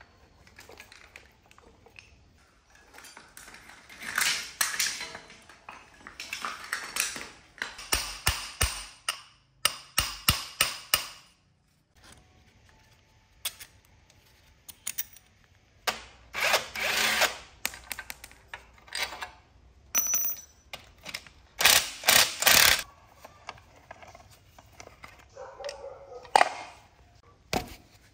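Rusty motorcycle parts being handled and taken apart: bursts of metal clatter, clicks and scraping that come and go, with short quiet gaps between.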